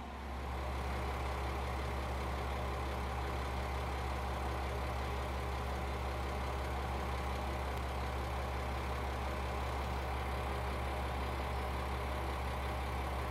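KiHa 120 diesel railcar's engine idling at a standstill: a steady low hum with no change in engine speed.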